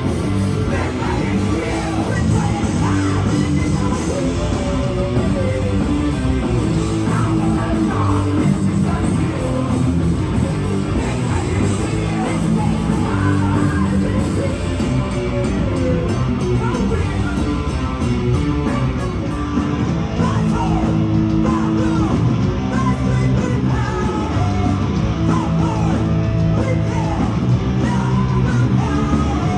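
A heavy metal band playing live, with a singer over electric guitars.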